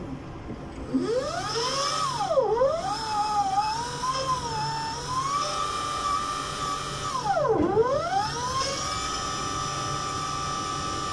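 Electric hydraulic pump motor of a Yale reach truck running on test after the hydraulics were bled of air, giving a high whine. The pitch climbs about a second in, twice drops sharply and climbs back, then holds steady.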